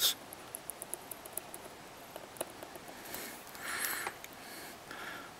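Faint crackling ticks of flux boiling under a soldering iron tip as it is drag-soldered along the pins of an SSOP chip, with a few soft hisses about three to four seconds in.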